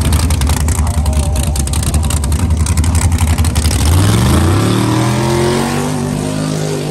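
Drag-race Fox-body Mustang's engine running with a loud, choppy low note, then revving up with a rising pitch about four seconds in as the rear tire spins in a smoky burnout.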